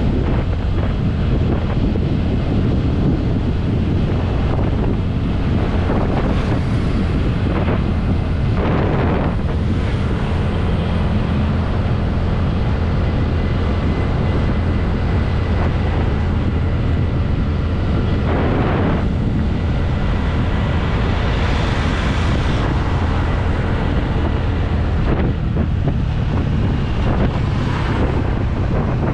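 Wind noise on the action-camera microphone over the steady running of a TVS Ntorq 125 scooter's single-cylinder engine at cruising speed, with a few brief swells of noise along the way.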